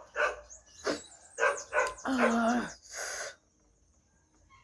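Dog barking in a run of short calls, with a longer drawn-out one about two seconds in.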